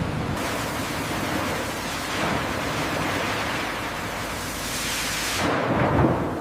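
Steady, loud rushing noise with a low rumble, swelling about two seconds in and again near the end.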